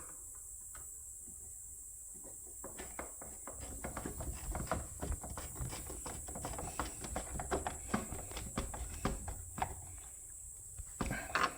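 Screwdriver driving a screw back into the casing of a Breville Barista Express espresso machine. After a quiet start it gives a run of quick, irregular clicks and creaks lasting about seven seconds.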